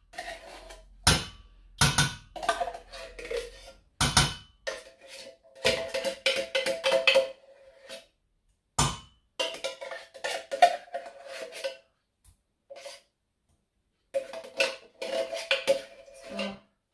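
A utensil knocking and scraping against a tin can of coconut milk as the thick milk is worked out of it, with sharp knocks and stretches of rattling clatter in which the can rings with a steady tone.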